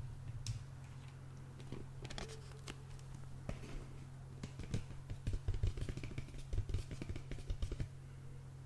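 A blister-packed slime toy handled, then tapped quickly and irregularly with the fingertips on its plastic blister and cardboard backing through the second half, over a steady low hum.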